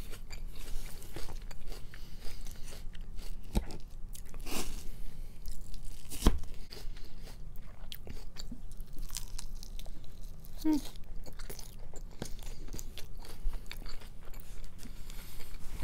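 Close-miked chewing and crunching of a mouthful of raw salad (greens, apple, cucumber, noodles), in irregular crisp bites.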